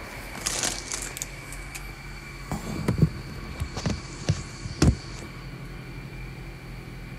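Phone handling noise: rustling and several dull knocks as the phone is moved and set in place, the loudest about three and five seconds in, over a steady hum with a faint high whine.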